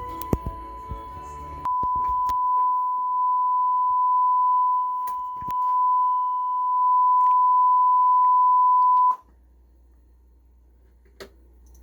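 A steady single-pitch test tone played through a repaired McIntosh MA6300 integrated amplifier, its loudness wavering a little. The tone cuts off suddenly about nine seconds in, leaving a faint low hum with an occasional click.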